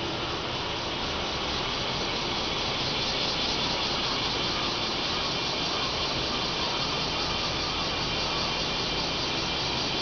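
A dense chorus of cicadas buzzing steadily in the trees, a continuous shrill hiss, over a low rumble of road traffic.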